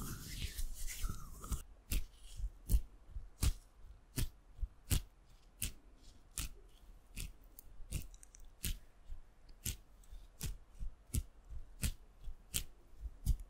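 Soft rustling for about the first second and a half, then a slow, even series of short, sharp ASMR clicks or taps, about one to two a second.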